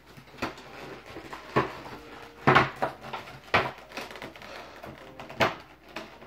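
Irregular sharp knocks and clicks of a Pokémon trading-card box and its packaging being handled and opened, six or seven in all, the loudest about two and a half seconds in.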